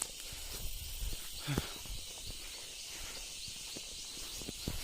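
A steady, high-pitched chorus of insects over a low, uneven rumble, with a couple of short knocks: one about a third of the way in and one near the end.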